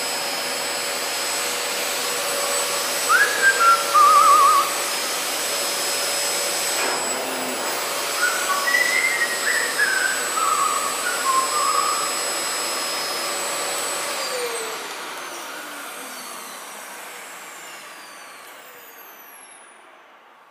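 Male eclectus parrot whistling in short warbling phrases over the steady whine of an appliance motor. About two-thirds through, the motor is switched off and its pitch falls as it spins down.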